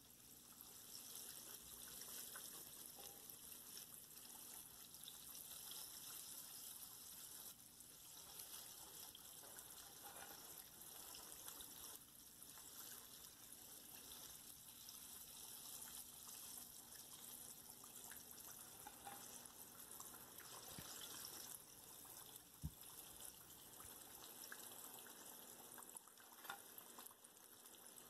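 Faint, steady sizzle of breaded chicken tenders deep-frying in hot oil in a pan, with two light clicks in the second half.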